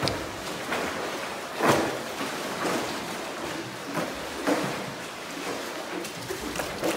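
Lake water sloshing and slapping against the rock walls of a sandstone sea cave and a paddle board, with irregular splashes about once a second, the loudest about a second and a half in.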